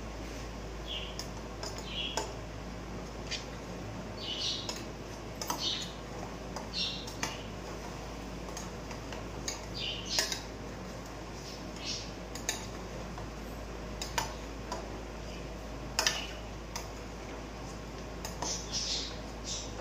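A kitchen utensil clinking and scraping against a small frying pan on a gas stove in short, irregular strokes, over a steady low hum.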